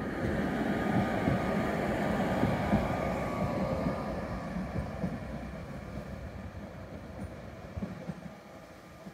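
Tatra KT4D articulated tram running past on its track and then away, loudest in the first few seconds and fading steadily as it recedes.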